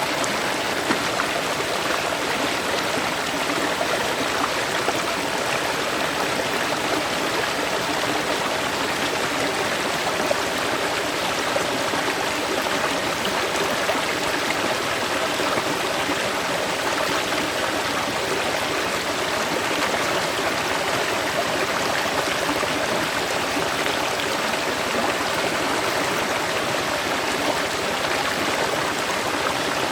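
River water flowing and babbling over rocks: a steady, even rush with no breaks.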